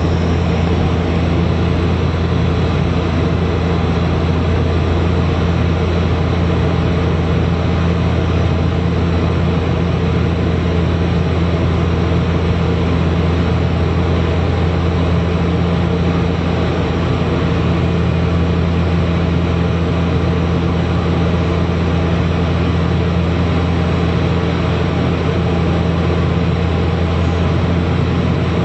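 Cabin noise of a Bombardier Q400 turboprop heard from a seat beside the engine on approach: its Pratt & Whitney PW150A engine and six-bladed propeller give a loud, steady low drone with a second hum above it, over even rushing air noise.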